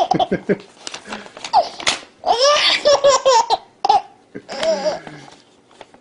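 A baby laughing hard in fits, sparked by paper being torn in front of her. There is a sharp rip just before the loudest, longest run of belly laughter, about two seconds in, and then a shorter laugh later on.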